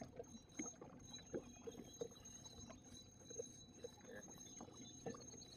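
Faint water lapping and small knocks against an aluminium boat hull, irregular and quiet, over a thin steady high whine.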